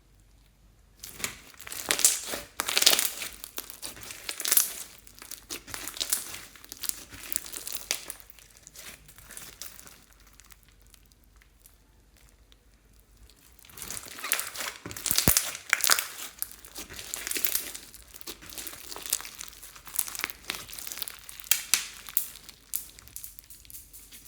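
Clear slime being squeezed and stretched by hand, giving off dense crackling, popping clicks. This comes in two long spells with a pause of a few seconds between them.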